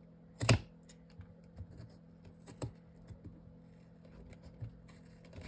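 Paper and chipboard craft pieces being handled and pressed together on a work surface: scattered light taps and clicks, the loudest about half a second in.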